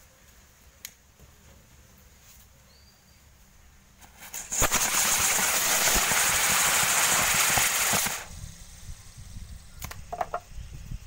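Small firecracker sky rockets taped to fidget spinners igniting about four seconds in and burning with a loud rushing hiss for about four seconds, then cutting out. A few faint clicks follow near the end.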